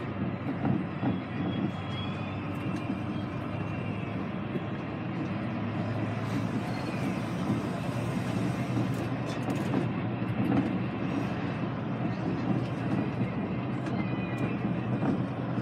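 Interior of a Volvo-chassis Optare Olympus double-decker bus under way: the diesel engine running steadily with road and tyre noise, and a few light clicks and rattles.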